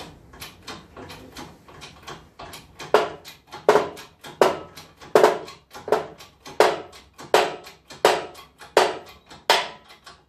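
Hydraulic shop press being hand-pumped in regular strokes while pressing a bush squarely into a Land Rover Series swivel ball. Lighter, quicker strokes at first, then about three seconds in louder, sharper strokes roughly every three-quarters of a second.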